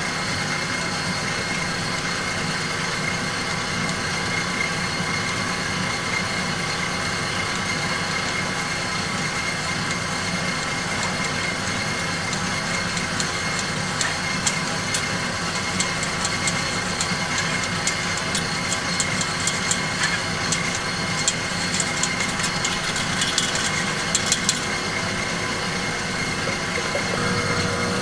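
Steady machine hum with several fixed tones from kitchen equipment. From roughly the middle onward, a gloved hand rubbing flour through a metal mesh sieve adds rapid small scratches and clicks as the sieve knocks against the steel bowl.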